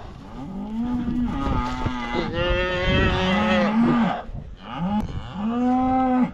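Cattle mooing: several long calls from more than one animal, two overlapping in the middle with one higher in pitch than the other.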